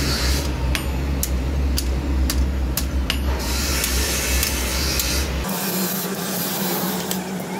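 Hand hammer striking a red-hot car suspension coil spring on a steel block, sharp blows roughly every half second, over a steady low hum and hiss that cuts off about five and a half seconds in.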